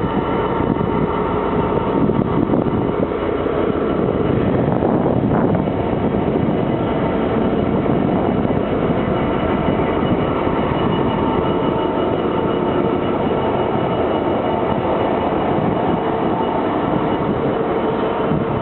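Class 66 diesel locomotive 66708, with its EMD two-stroke engine, hauling a ballast train, with the wagons running on the rails. The sound is a loud, steady rumble, with a few thin, steady high tones over it.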